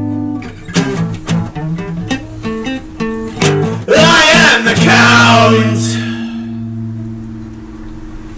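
Acoustic guitar: single picked notes, then about four seconds in a hard strummed chord, struck again a second later and left to ring and fade out as the song's closing chord.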